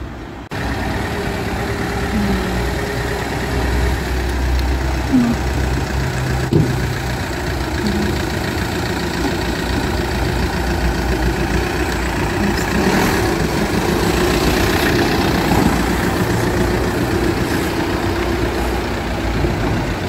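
Volkswagen Transporter van's engine running at low speed, idling and then pulling out onto the street, a steady low rumble.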